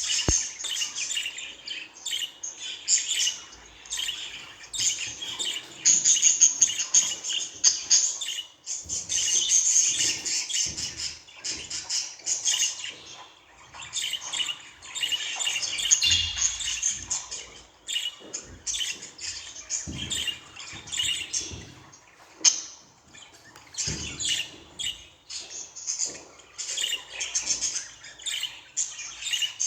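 Budgerigar warbling and chattering: a continuous stream of fast, high chirps and squawks with only brief pauses.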